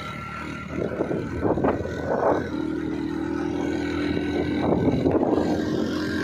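Motorcycle engine running steadily while riding along a dirt road, with irregular swells of wind noise on the microphone.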